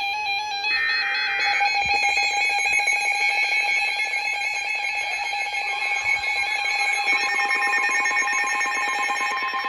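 NOAA Weather Radio Emergency Alert System signal. The last of the SAME header's data bursts is a brief buzzing screech, and about a second and a half in it gives way to the steady 1050 Hz warning alarm tone, which holds and marks the start of a warning broadcast.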